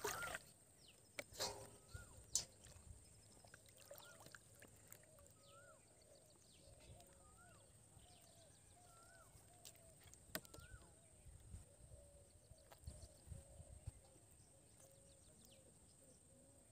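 Near-silent riverside ambience with faint birdsong: a short rising-and-falling call repeated about once a second over a lower chatter, and a few light clicks.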